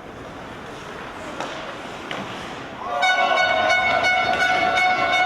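An ice rink's electric horn sounding one long, steady blast about three seconds in, over the noise of the rink.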